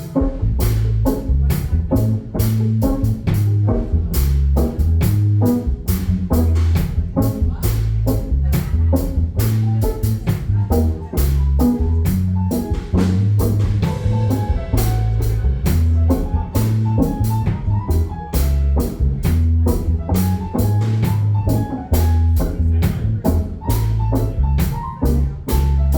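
A small band playing live: a drum kit keeping a steady beat, with a moving bass line low down and guitar on top.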